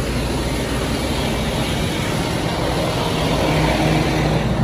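Semi tractor's diesel engine idling steadily, a little louder near the end.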